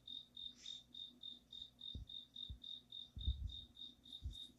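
A cricket chirping over and over at one high pitch, about four even chirps a second, like an alarm clock beeping. A few dull low thumps are heard under it, around two and three seconds in.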